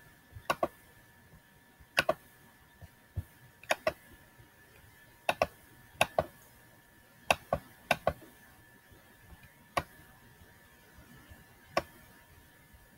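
Computer mouse clicking at irregular intervals, single clicks and quick double clicks, sharp and close.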